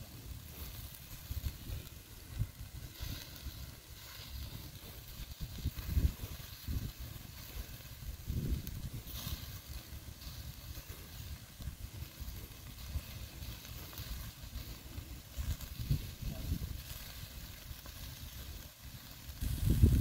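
Wind buffeting the microphone in uneven gusts, with a faint hiss of burger patties sizzling on a small charcoal grill.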